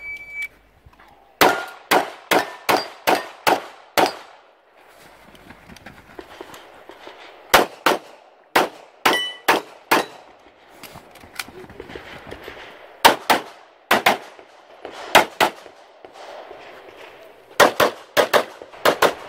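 A shot timer's short start beep, then a CZ Shadow 2 9mm pistol firing rapidly in quick pairs and strings of shots, with short pauses between strings.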